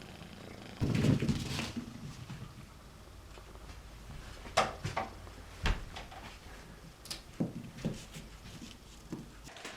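Scattered light knocks and clicks, with a louder muffled thump and rustle about a second in.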